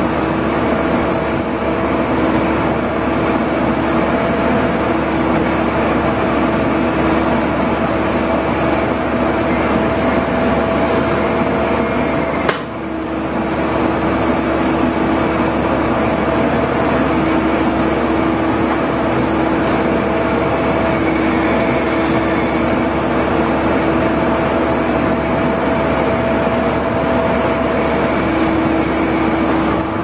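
John Deere 310J backhoe loader's diesel engine running under load while the backhoe boom and bucket are worked, with a whine that drops in and out. A single sharp knock about halfway through, followed by a brief dip in the engine sound.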